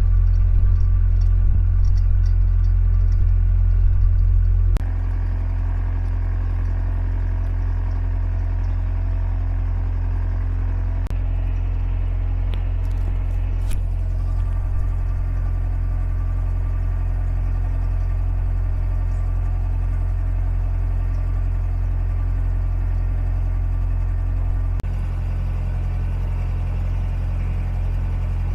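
Narrowboat engine running steadily while the boat cruises, a low even rumble. The level steps down a little about five seconds in.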